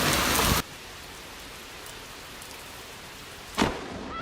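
Heavy rain falling, loud at first, then cut off abruptly to a quieter, steady rain hiss. A single sharp knock near the end.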